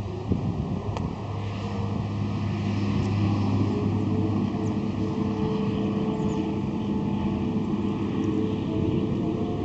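Outdoor emergency warning siren sounding in the distance, its pitch gliding up about four seconds in and then holding steady, with a second faint rise near the end. Wind on the microphone and a steady low hum lie under it.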